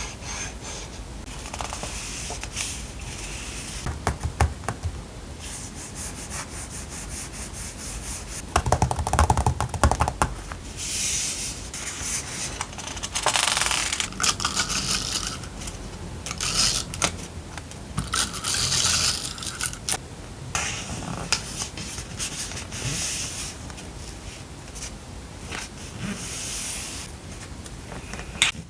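Paper stationery being handled close up: repeated sliding, rubbing and rustling of paper sheets, with scattered small taps. About nine seconds in comes a quick cluster of clicks and knocks, the loudest part.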